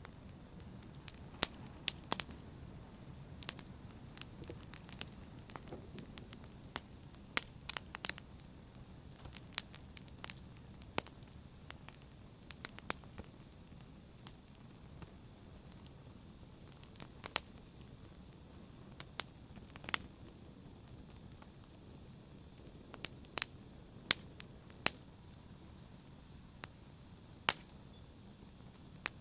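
Wood fire burning in a fireplace, crackling: irregular sharp pops and snaps, several every few seconds, over a low steady rumble of the flames.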